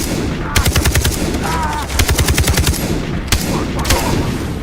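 Video-game automatic gunfire: several short bursts of rapid shots, about ten a second, with brief pauses between bursts.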